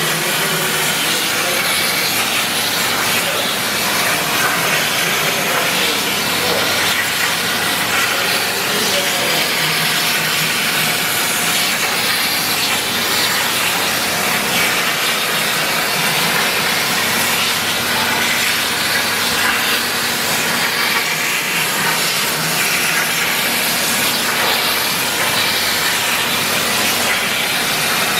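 Hypertherm Powermax plasma torch on a CNC table cutting corrugated steel sheet: the plasma arc gives a steady hiss that does not break.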